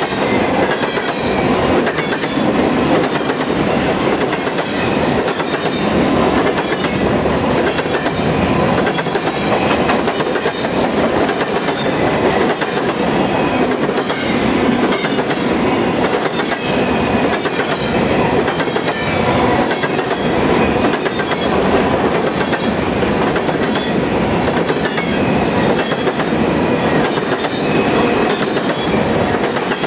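Covered hopper cars of a freight train rolling past close by: a steady rumble of steel wheels on rail, with the wheels clacking at a regular beat.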